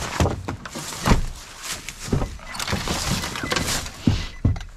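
Nissan pickup truck door swinging and shutting, with knocks, thuds and rustling as someone climbs into the cab; the loudest thud comes about a second in.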